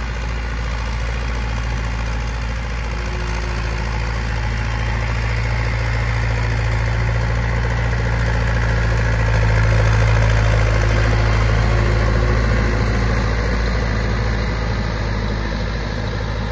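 HMT 5911 tractor's three-cylinder diesel engine running steadily, growing louder about halfway through and then easing off again.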